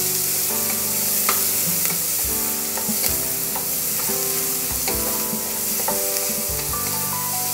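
Chopped onion sizzling in hot oil in an aluminium pressure cooker, stirred with a spatula that scrapes and knocks against the pan a few times.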